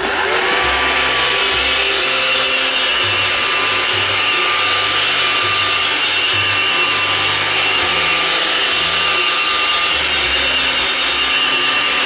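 iRobot Roomba 530 robot vacuum running its cleaning cycle: the steady whir of its vacuum motor and spinning brushes, with a thin steady whine on top that drops out about ten seconds in.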